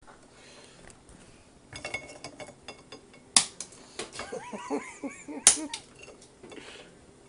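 Handling noises: light clicks and clinks, two sharp knocks about two seconds apart, and a short wordless voice-like sound between them.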